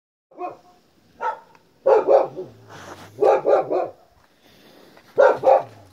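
A dog barking repeatedly, about nine short barks in quick runs of one to three.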